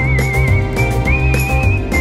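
Background music: a whistled melody with vibrato over a bass line and light percussion, the tune stepping up in pitch about a second in.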